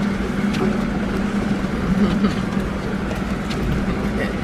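Inside the cabin of a Toyota LandCruiser 60 Series on the move: a steady engine hum with occasional light knocks and rattles.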